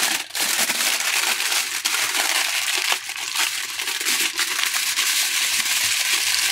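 Aluminium foil crinkling and crackling continuously as it is folded and pressed by hand into a parcel around vegetables.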